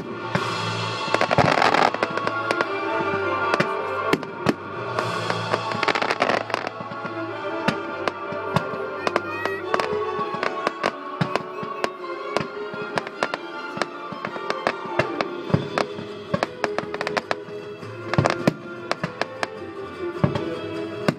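Aerial fireworks bursting and crackling, with many sharp pops and bangs one after another, over music played along with the display.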